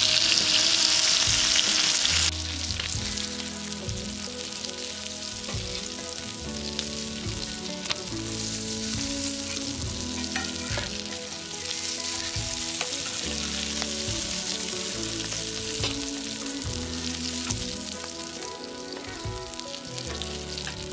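Sankara (red snapper) fish pieces shallow-frying in oil on a flat iron griddle: a steady sizzle, louder for the first two seconds and then quieter, with a few light clicks.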